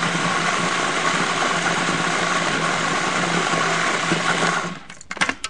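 Electric food processor running for about five seconds as it chops the sofrito's peppers and epazote leaves, a steady motor hum under the noise of the blades; it winds down near the end, followed by a couple of short clicks.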